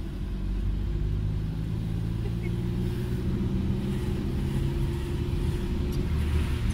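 Steady engine and road noise of a moving car, heard from inside its cabin.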